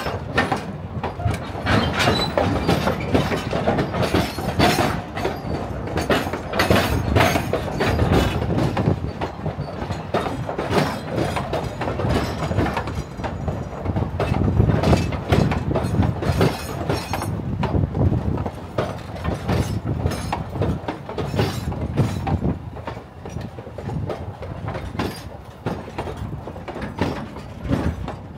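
Durango and Silverton narrow-gauge steam train rolling past, a dense rapid clatter of wheels on the rails that grows quieter for the last few seconds.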